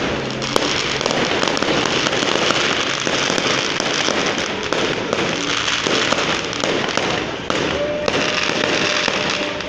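Aerial fireworks bursting overhead, a dense, unbroken run of bangs, pops and crackles.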